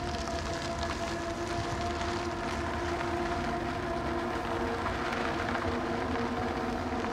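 Steady road and engine noise from inside a moving car, with a few long held tones running underneath.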